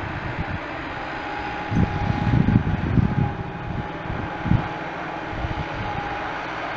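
Massey Ferguson diesel tractor running steadily as it tows a loaded trolley along a dirt track. Wind buffets the microphone in low gusts, strongest between about two and three seconds in.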